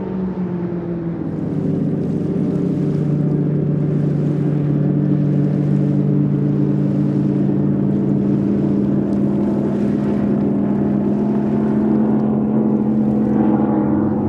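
Performance powerboat engines running at speed: a loud, steady, deep engine drone made of several tones. The pitch drops about a second in and then holds steady.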